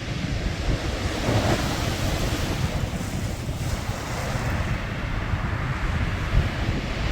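Sea waves washing and hissing, with a wave swelling up about a second in, over wind buffeting the microphone with a low rumble.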